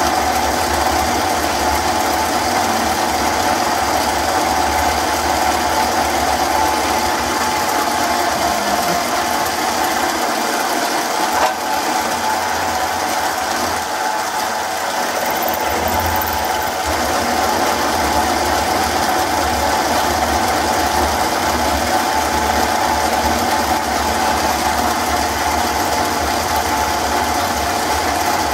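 MicroLux 7x16 mini lathe running steadily under power feed, cutting the threads off a workpiece, with a constant machine whine.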